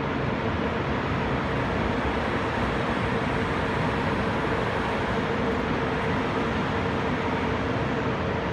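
Electric regional train of double-deck coaches and an electric locomotive rolling slowly out of the station: a steady, even rumble of wheels and running gear with a constant faint hum.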